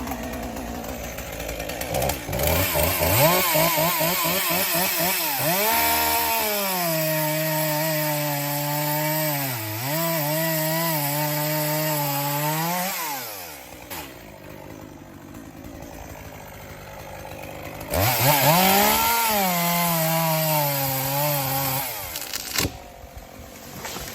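Gas chainsaw revving up and cutting into a black birch trunk, its pitch sagging and wavering under load, then falling away about halfway through. After a pause of a few seconds it revs and cuts again for about four seconds before stopping.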